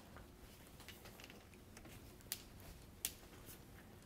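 Near silence: room tone with two faint clicks.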